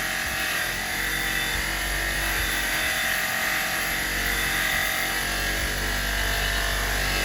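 Small electric motor running steadily, a constant whine with no change in speed.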